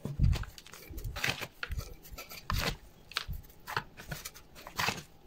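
Gloved hands pressing and scooping potting mix around a plant in a small ceramic pot: irregular short scrapes and rustles of soil and grit, with a few dull knocks.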